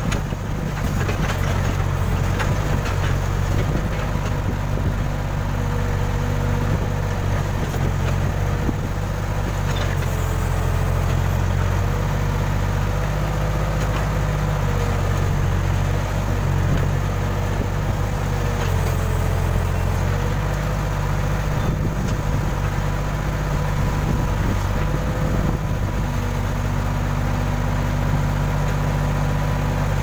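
Case Super K backhoe loader's diesel engine running steadily, heard close from the operator's seat, with a fainter whine that dips in pitch now and then as the backhoe arm is worked.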